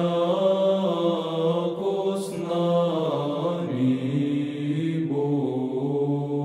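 Unaccompanied Orthodox church chant: several voices sing slow, sustained lines over a steadily held low drone.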